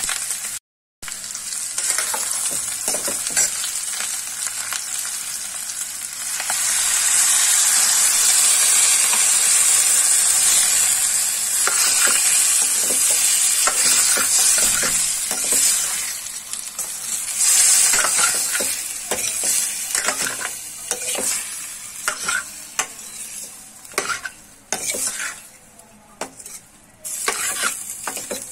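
Diced potatoes frying in a steel kadhai, sizzling while a metal ladle stirs and scrapes them around the pan. The sizzle is loudest through the middle, then dies down, leaving scattered scrapes and clinks of the ladle near the end.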